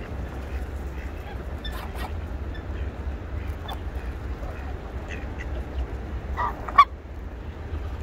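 Geese honking, one loud honk near the end, over a low steady rumble.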